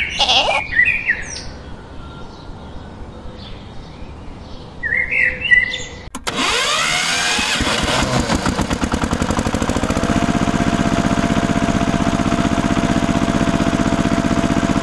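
Birds chirping for the first few seconds. Then, after an abrupt change about six seconds in, a loud engine-like running sound with a fast, even rattle sets in as the toy mini tractor drives in, and a thin steady whine joins it about ten seconds in.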